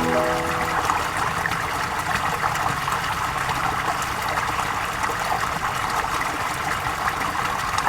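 Steady flowing water, an even rushing trickle with no pauses. A few piano notes fade out in the first half second.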